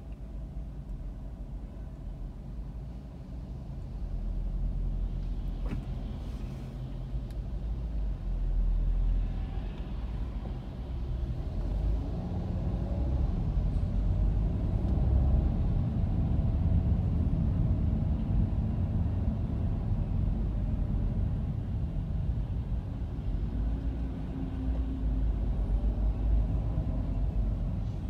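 Low rumble of a car's engine and tyres heard from inside as it creeps through dense city traffic, growing louder about four seconds in and again from about twelve seconds as the car moves on.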